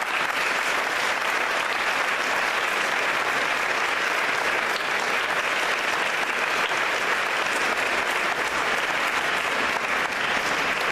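Congregation applauding steadily inside a large church.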